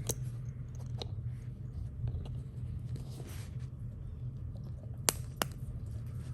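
Small sharp clicks and taps of fidget-slider parts being handled during assembly, with two louder clicks about five seconds in, over a steady low hum.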